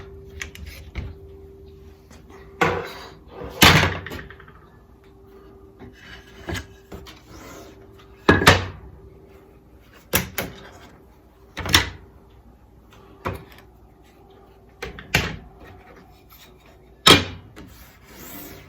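Clamps being undone and mould pieces knocked and set down as a clamped-up forming mould is taken apart: about a dozen separate knocks and clatters at irregular intervals, over a faint steady hum.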